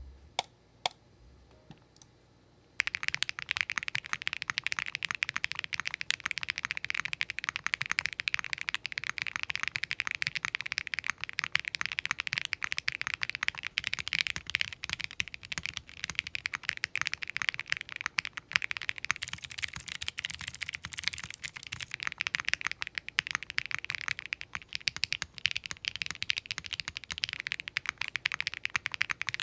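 Fast, continuous typing on a mechanical keyboard fitted with pre-lubed Akko Starlit medium-weight linear switches, in a top-mount Tofu60 2.0 case with only case foam. A few single key presses come first, then steady rapid typing starts about three seconds in.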